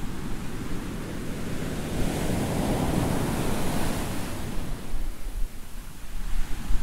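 Sea waves washing on a shore: a steady rush of surf, with one wave swelling about two seconds in and falling away again.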